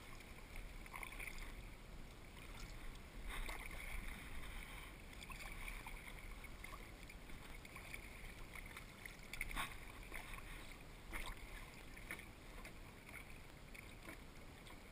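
Kayak being paddled on calm water: faint paddle strokes, with water dripping and trickling off the blades in recurring patches, and a few short sharp ticks or splashes.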